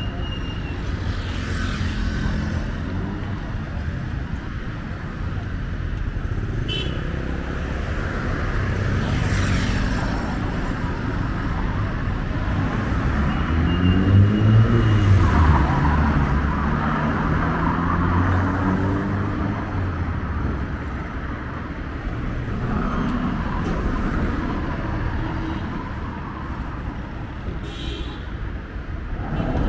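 Busy street traffic: a steady rumble of passing cars and motorbikes. About halfway through, one vehicle's engine rises in pitch as it accelerates past and is the loudest sound.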